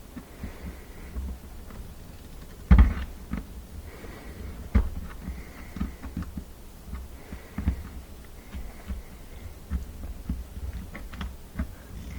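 Scattered clicks and knocks of a flat-head screwdriver prying a hose clamp off a dishwasher pump hose, with a sharp knock about three seconds in and another just before five seconds.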